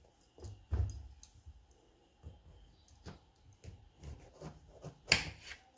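Kitchen knife cutting a peeled bottle gourd on a wooden chopping board: scattered clicks and knocks of the blade through the flesh and onto the board, the loudest about a second in and again near the end.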